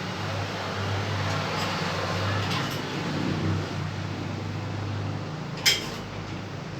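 Hydraulic press running under load with a steady low mechanical hum, pressing a steering tie rod towards about 15 tonnes. The hum drops off about five seconds in, and a sharp click follows shortly after.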